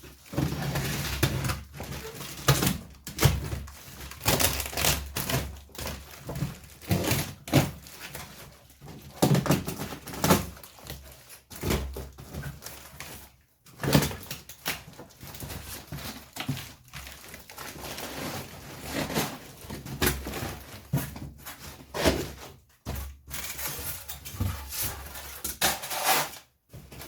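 A large cardboard box being cut open and unpacked: scraping and rustling of cardboard and packing with many irregular thunks and knocks.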